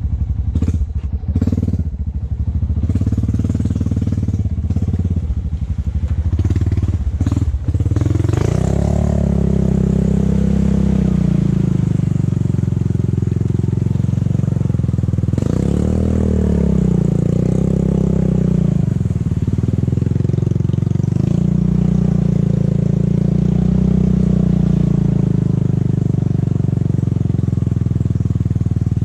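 A Honda ATV's single-cylinder engine runs under load on a muddy trail, rising and falling in pitch as the throttle is worked. Over the first eight seconds it is broken by knocks and clatter from the machine bouncing over the rough ground.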